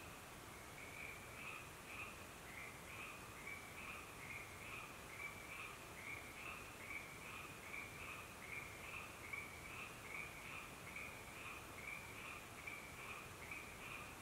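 A chorus of frogs calling, short croaks repeating about twice a second and overlapping each other, steady throughout.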